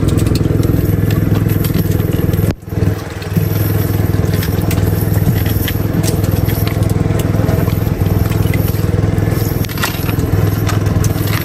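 Small boat engine running steadily with a low drone, with crackling clicks over it; the sound drops out for a moment about two and a half seconds in, then resumes.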